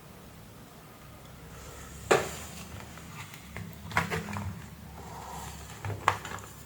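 Three sharp clicks or knocks about two seconds apart, the first the loudest, from hands handling a tablet and its charging cable on a workbench, over a low steady hum.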